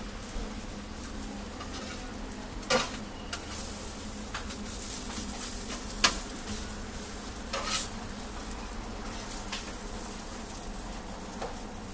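Egg pancakes (danbing) sizzling steadily on a steel flat-top griddle. A metal scraper clacks and scrapes against the plate a few times, most sharply about six seconds in.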